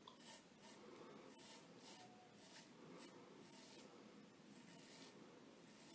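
A 15/16 straight razor by Cichy Custom Knives scraping stubble through shaving lather in a series of short, faint strokes, about two a second.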